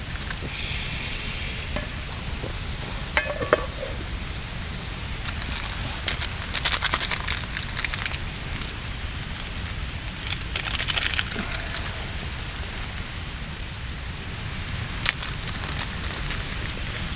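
Food cooking over a campfire, hissing and sizzling in short bursts twice, with a couple of metal clinks about three seconds in, over a steady rushing background noise.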